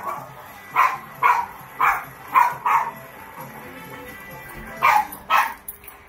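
A dog barking in short, high yips: five in quick succession, then two more after a pause.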